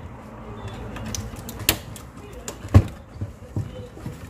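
Clicks and knocks of parts being reseated by hand in an open desktop PC case, plastic slots and latches clicking as memory and the graphics card are pushed home. A sharp click comes a little under two seconds in, the loudest knock just after, then several lighter clicks.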